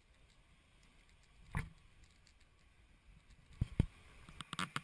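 Faint sharp clicks and knocks over low background noise: one about a second and a half in, then a quick cluster near the end.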